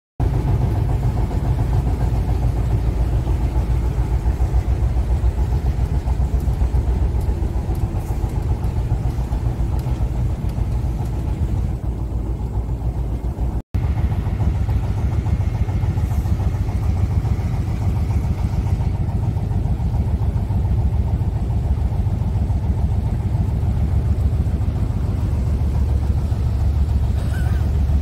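Engine of a wooden river boat running steadily under way, a continuous deep drone with a hum above it. The sound drops out for an instant a little before halfway, then carries on the same.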